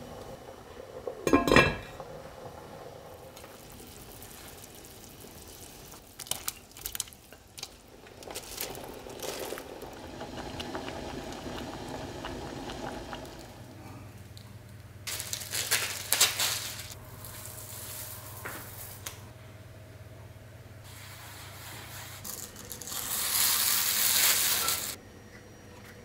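Kitchen handling sounds. A wooden spoon stirs soup in an enamelled pot and knocks against it once about a second and a half in. Later comes loud crinkling of a plastic-wrapped pack of ready-rolled puff pastry sheets, and near the end a longer rustle of wrapping.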